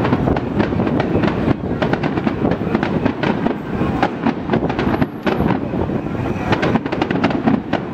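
Aerial fireworks shells bursting overhead in a dense barrage: many bangs and crackles in quick succession over a steady low rumble.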